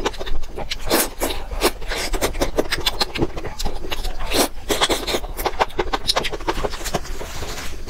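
A person slurping noodles out of a soupy broth and chewing them, with rapid wet slurps and mouth clicks in quick succession.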